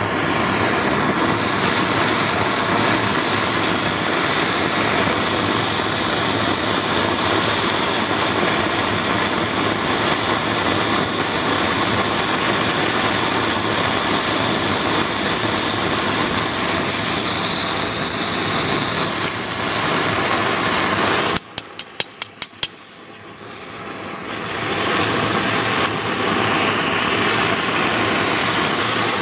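Brazing torch flame burning with a steady rushing hiss. About two-thirds of the way through it cuts out suddenly, a quick string of about six clicks follows, and then the hiss builds back up.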